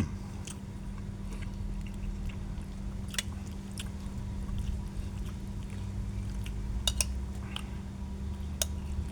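A person chewing and eating fish curry, with scattered small clicks over a steady low hum.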